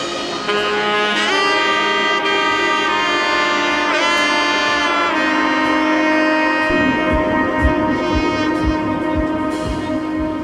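Background music: long held, swelling tones in layered chords, joined by a low, regular beat about two-thirds of the way in.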